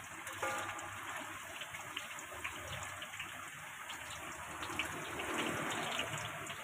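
Tapioca-battered tofu deep-frying in hot oil in a large wok: a steady sizzle full of small crackles and pops.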